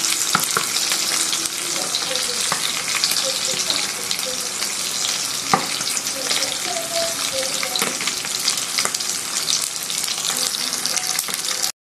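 Oil sizzling and crackling in a frying pan around two marinated milkfish (dinaing na bangus) as they fry, with scattered pops and one sharper pop about halfway through. The sound cuts off suddenly just before the end.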